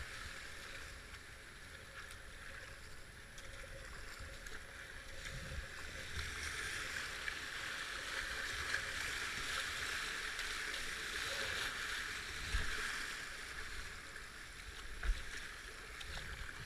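Whitewater rushing and churning around a kayak running a shallow river rapid, with paddle splashes. The rush swells through the middle, and a few dull low thumps come in the second half.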